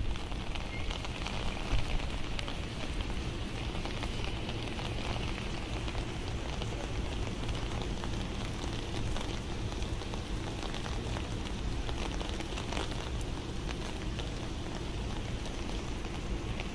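Steady rain falling on a wet street and parked cars, with a few sharp ticks.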